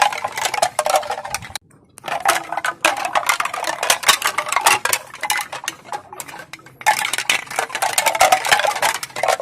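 Pieces of bamboo clacking together in a rapid, crisp run of clicks, stopping briefly about one and a half seconds in and again past the middle before starting up again.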